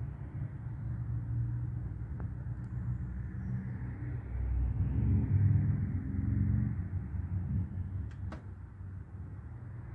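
Low rumble of distant road traffic, swelling about halfway through as a vehicle passes, then easing off again.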